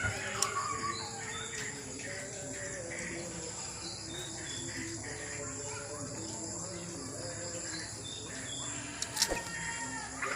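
Wild sooty-headed bulbul calling in short whistled notes over a steady high background hiss. A sharp click comes about nine seconds in.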